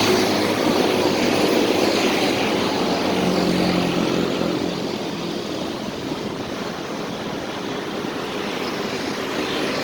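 Steady rushing noise of wind and road on the microphone during a bicycle ride, with a low hum that swells briefly about three seconds in.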